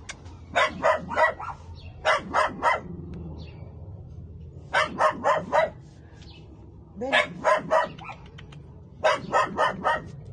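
A dog barking in quick runs of three or four sharp barks, five runs a couple of seconds apart.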